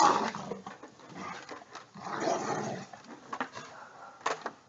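A dog making vocal sounds in a few short bursts, the first the loudest, with a couple of sharp knocks near the end.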